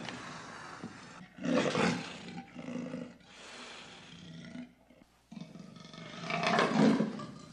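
Big cat growling in rough, noisy bursts. The loudest come about one and a half seconds in and again around six to seven seconds in, with a brief break near five seconds.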